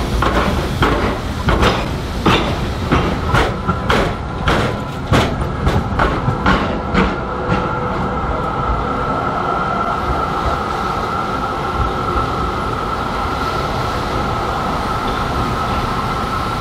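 B2-class tram's wheels knocking over the gaps of a tram square, where its tracks cross the railway: a run of sharp clunks, about one or two a second, for the first eight seconds. From about six seconds in, a steady high whine runs on as the tram moves away.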